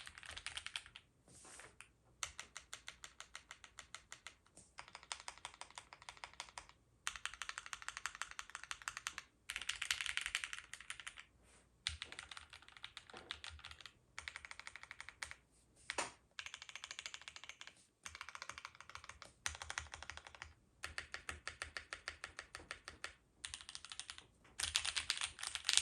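Typing on a gasket-mount mechanical keyboard with an aluminium plate, lubed and filmed C3 Equalz Banana Split linear switches and GMK keycaps: runs of fast keystrokes with a clacky sound, broken by short pauses. A few single, louder strokes stand out near the middle, the loudest about two thirds of the way in.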